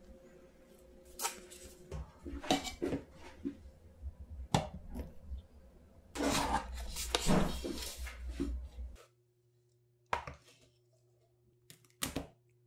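Sticky clicks and crackles of a spatula working hot, foamed sugar syrup for tanghulu, followed by a louder, dense run of crackling about six seconds in. It stops suddenly near nine seconds, leaving a faint hum and two single clicks.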